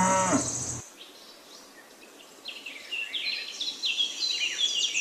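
A cow's moo trailing off in the first second over a steady high insect chirr. From about halfway, birds chirp repeatedly in quick, downward-sliding high notes.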